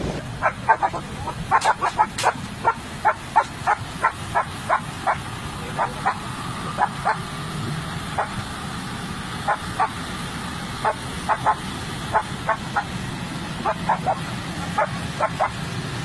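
A dog barking: many short, sharp barks, two or three a second in irregular runs, over a steady low rumble.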